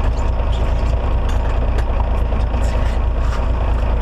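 Fishing boat's engine running steadily with a deep, even low drone, with water and wind noise over it.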